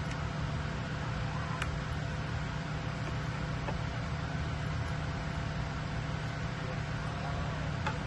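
Steady low machine hum, with a few faint clicks as small plastic wire connectors are handled.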